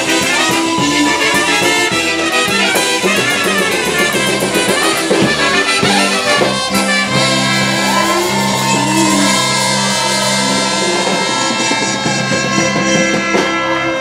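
Live polka band playing instrumentally, two trumpets leading over accordions, keyboard and drums. The trumpets hold long notes in the second half.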